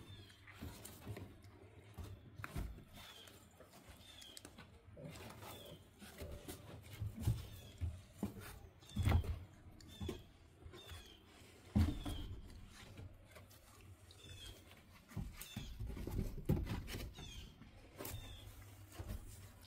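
Central Asian Shepherd puppies scuffling and scrambling on a wooden floor, with soft thumps and rustles as they paw and mouth at a hand, the loudest bumps around nine and twelve seconds in. Faint, short, high chirps repeat every second or so.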